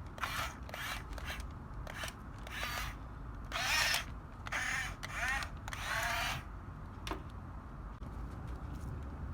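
Small electric motors of a Huina 6-channel RC bulldozer whining in short bursts as it is driven, each burst rising and falling in pitch. The bursts stop about six and a half seconds in, and a single click follows.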